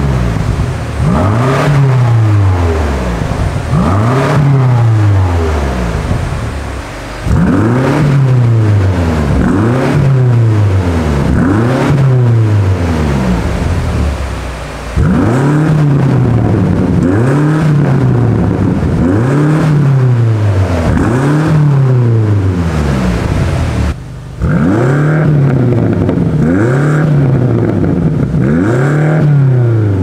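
BMW M8 Gran Coupe Competition's twin-turbo V8 free-revving in repeated blips, each rev climbing and falling back within about a second, one every two seconds or so. The first runs are on the stock exhaust; after a cut about halfway it is heard with Fi Exhaust catless downpipes and the factory catback.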